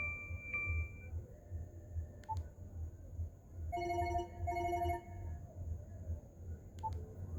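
BlackBerry Curve 9220 ringtones playing from the phone's speaker: a high steady beeping tone stops about a second in, then after a pause a classic telephone-style ring sounds twice in quick succession near the middle. A steady low hum runs underneath.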